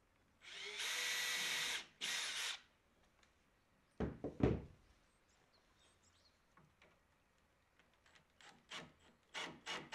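Cordless drill driving a screw into the wooden door frame in two runs, a long one and a short one. About two seconds later come a few heavy wooden knocks, then several lighter knocks near the end.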